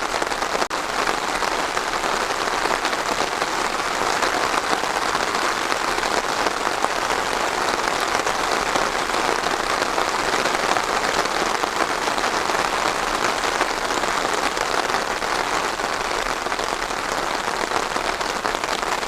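Steady rain falling on a surface: an even, dense hiss of many drops, with a brief drop-out under a second in.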